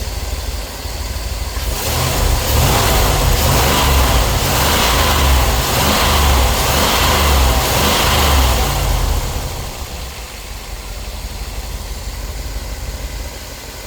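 Petrol engine with distributor ignition idling, then revved up for about seven seconds before dropping back to a steady idle. It runs without a misfire on a new ignition coil, distributor cap, rotor, spark plugs and plug wires, which cured spark tracking.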